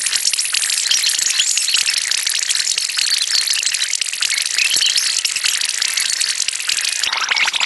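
Heavily sped-up, distorted meme audio: a continuous, dense, high-pitched rattling chatter. About seven seconds in it becomes fuller and lower.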